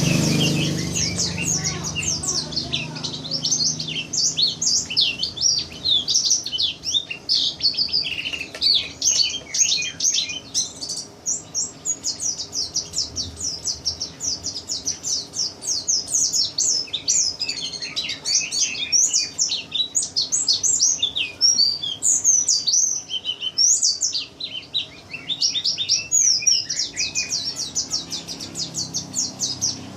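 Caged white-eye (pleci) singing a long, fast, high-pitched twittering song of rapid chirps and trills, pausing only briefly a few times.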